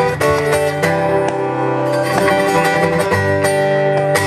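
Instrumental music on acoustic guitar: strummed chords played at a steady rhythm, with no singing.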